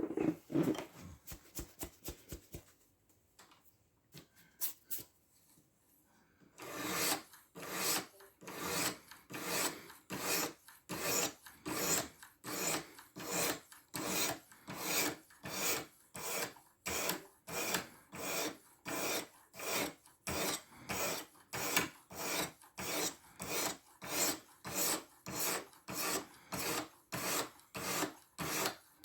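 Diamond sharpening stone rasping back and forth along a knife's edge in a guided sharpener, on the 600-grit stone. A few light, uneven strokes come first; from about six seconds in the strokes turn steady and even, about one and a half a second.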